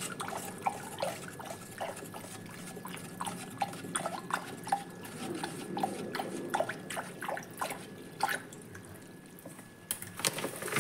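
Water being stirred with a wooden stick in a plastic basin to dissolve fertilizer powder, with irregular small plops and swishes several times a second, easing off near the end.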